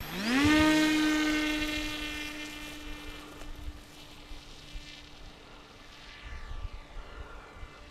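Electric motor and propeller of an RC plane spinning up with a quick rising whine, then holding a steady buzzing tone that gradually fades.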